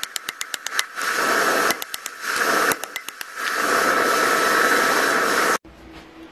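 Quick runs of hammer blows on red-hot steel, the ball peen hammer head being forged into a tomahawk on a steel block anvil, at about five strikes a second. Between the runs comes a steady rushing noise with a faint high whine, most likely the forge running, which stops abruptly near the end.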